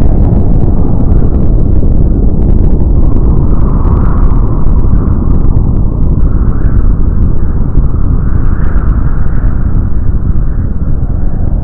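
Loud, steady deep rumble of a large explosion rolling on without let-up.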